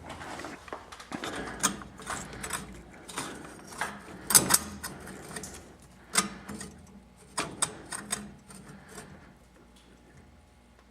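Irregular clicking and clacking of a hand-worked mechanism, like a ratchet being worked, in uneven bunches that die away about nine seconds in.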